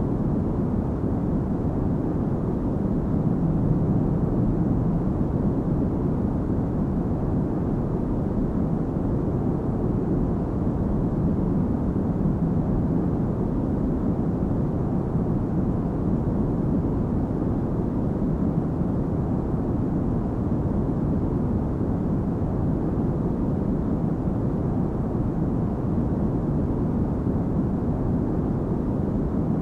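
Steady cabin noise of an airliner in flight, heard from inside the cabin: an even low rumble and rush with no changes.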